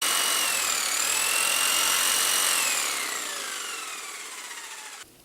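Electric power tool motor running at speed with a high whine, then winding down in pitch as it coasts to a stop over the last couple of seconds, cut off abruptly near the end.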